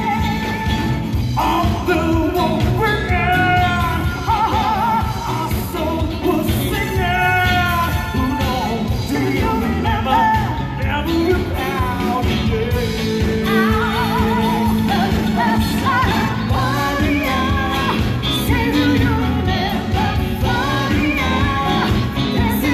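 A pop-rock song with a singing voice, played loud and continuously with a full band backing.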